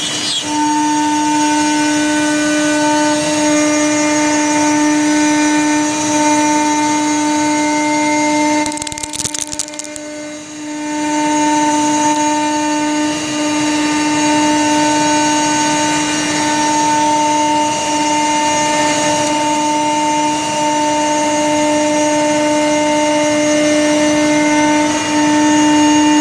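CNC router spindle turning an 8 mm single-flute up-spiral carbide bit at 20,000 rpm, cutting through 1-inch HDPE sheet: a steady high whine over the hiss of the cut. About nine seconds in the sound drops away for a second or so, then the whine comes back.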